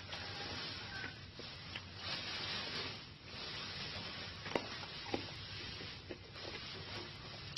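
Close-up chewing of candied strawberries: a rustling crunch that swells and fades, with a few sharp clicks in the second half.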